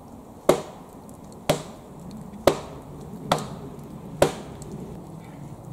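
Axe chopping into wood: five sharp blows about a second apart, each with a short woody ring.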